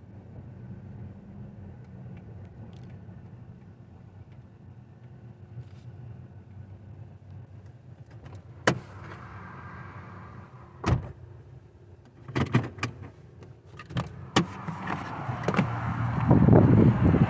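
A car running at low speed, heard from inside the cabin as a steady low hum. From about halfway in come several sharp clicks and knocks, and near the end a louder rushing noise builds up.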